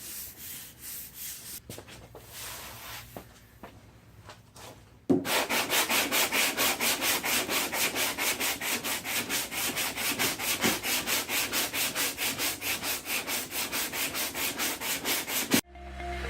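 Hand sanding of body filler (Bondo) on a steel car door with sandpaper: soft, uneven strokes at first, then about five seconds in, steady, brisk back-and-forth strokes at about five a second that stop suddenly near the end.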